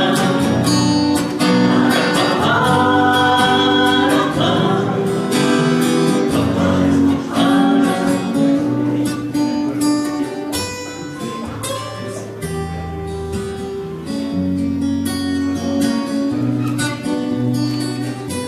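Acoustic guitar strummed while a small mixed group of men and women sings together; a little quieter in the second half.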